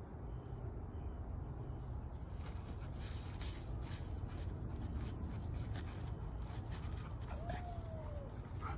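Two dogs scuffling and play-wrestling on grass, with faint rustling and ticks as they move, over a steady low wind rumble on the microphone. A short, slightly falling whine is heard near the end.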